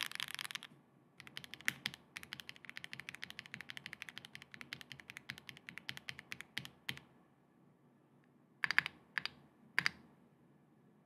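Typing on a Neson N6 custom mechanical keyboard with factory-lubed WS Red linear switches, a PC plate, case and plate foam and PBTFans PYGA PBT keycaps: a quick run of keystrokes, a pause, then three louder, deeper keystrokes. A hissing noise cuts off within the first second.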